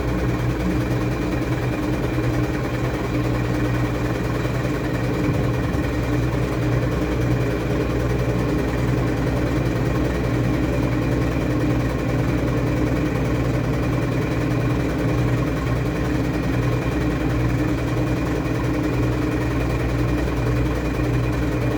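Washing machine running with a steady, unchanging motor hum.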